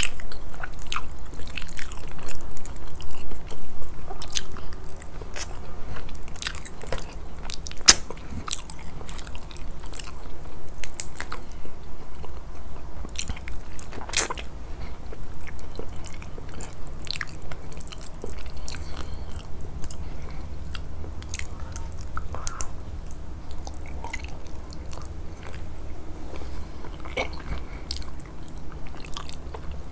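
Close-miked eating sounds of a person chewing a meal of grilled fish: irregular crunchy bites and sharp mouth clicks over steady chewing.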